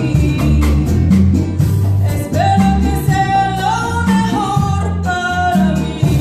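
Live Latin American band music: a woman singing with violin, acoustic guitar and percussion keeping a steady beat. A long held note rises in the middle.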